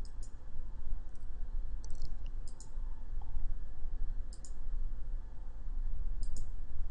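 Computer mouse button clicking, a few quick pairs of clicks spread over several seconds, over a low steady hum.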